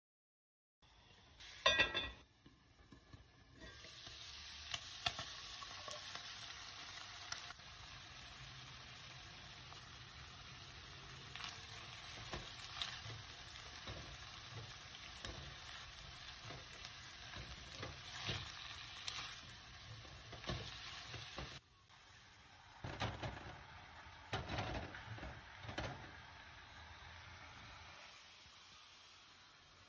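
Chopped veal frying in a pan, with a steady sizzle and a spatula stirring and scraping through it in short clicks. The sizzle cuts off suddenly about three-quarters of the way through, leaving a few scattered knocks.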